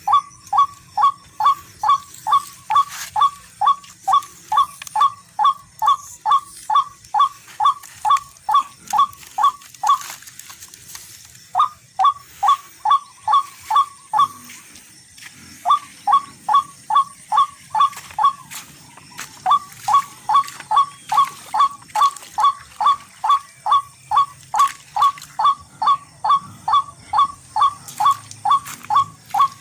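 Barred rail (tikling) calling: a long run of short, identical notes at about three and a half a second, broken by three pauses of a second or so in the middle.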